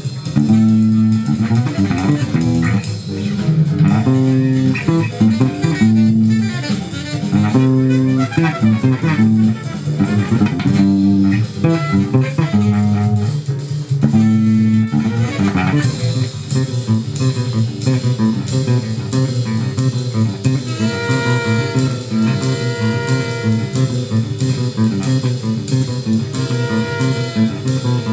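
Electric bass guitar being fingerpicked, playing a jazz line with notes changing continually.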